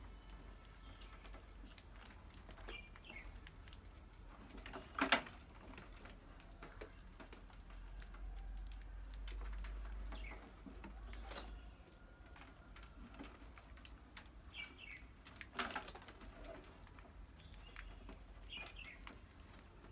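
Mice moving about in and around a wire-mesh cage trap: faint scrabbling and small clicks, with two sharper knocks of the mesh, about five seconds in and again near sixteen seconds. A few short, faint high chirps come and go.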